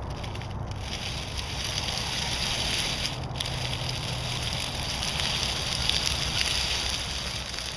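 Scale RC rock crawler driving over dry leaves and rocks: a steady crackling rustle of leaves crushed under its tyres, over a low drone from its drivetrain. The rustle is loudest about six seconds in, as the truck comes closest.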